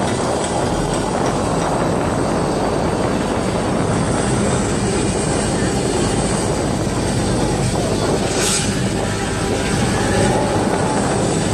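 Steady low drone of a boat's engine under a constant rush of wind and water noise, as heard aboard a moving boat, with a brief hissing swell about eight and a half seconds in.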